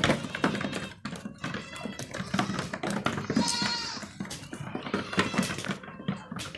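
Goats bleating, several calls in a row, the strongest a high, drawn-out bleat about three and a half seconds in.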